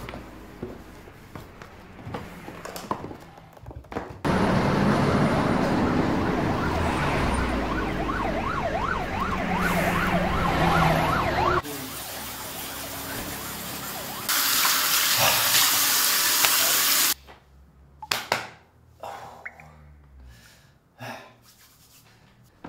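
A police siren wailing, its pitch swinging up and down quickly, over a steady rushing noise. A louder hiss follows, then a few short knocks near the end.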